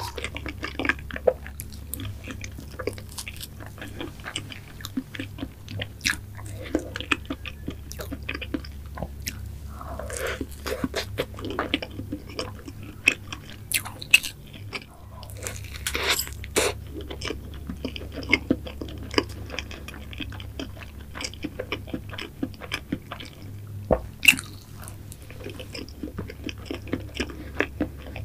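Close-miked chewing of mango cream cake: soft, wet mouth sounds with many small clicks and smacks.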